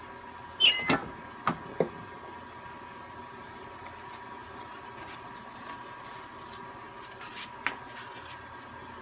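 Flat heat press opened at the end of a 3-second press: a loud metal clack with a short falling squeal as the heated platen is released, then two sharp knocks as it is swung aside. A single click comes near the end, over a faint steady high tone.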